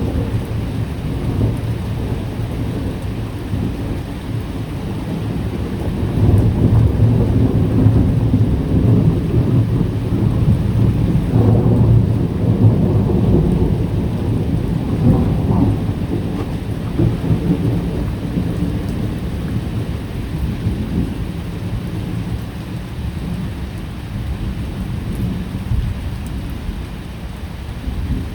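Long rolling thunder rumbling low over steady rain. The rumble builds several seconds in, is loudest through the middle, and slowly dies away toward the end.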